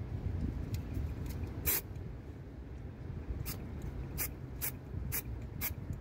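Short hissing puffs from an aerosol spray-paint can, one strong puff about two seconds in, then a quicker run of about five puffs every half second or so in the second half, over a low steady rumble.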